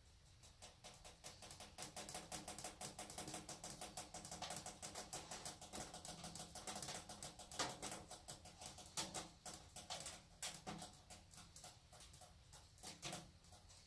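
Pellet stove burning at setting 6: a quick, uneven run of small clicks and ticks that thickens after about half a second and thins out near the end, over a faint steady hum.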